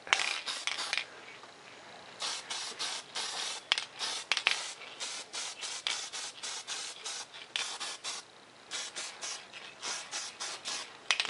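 Aerosol spray paint can hissing in a series of short bursts, each under a second or two, with brief pauses between passes.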